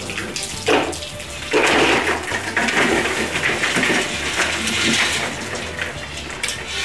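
Live crawfish and the water running off them pouring from a perforated aluminium boil basket into a plastic ice chest. The noisy, watery pour lasts about three seconds, starting about one and a half seconds in, with a brief burst of sound just before it.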